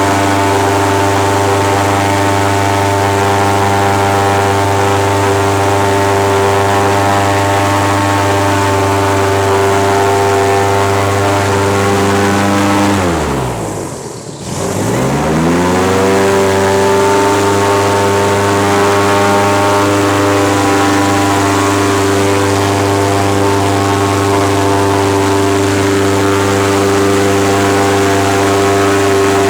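An airboat's engine and propeller running loud and steady. About halfway through, the throttle is cut so the pitch drops sharply, then it is opened again and the engine revs back up to speed.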